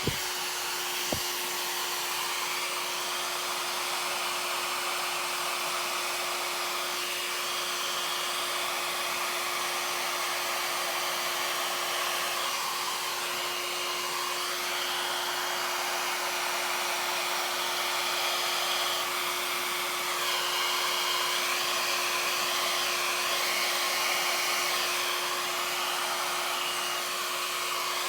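Mini hairdryer blowing steadily with a constant motor hum, pushing wet acrylic paint outward into a bloom.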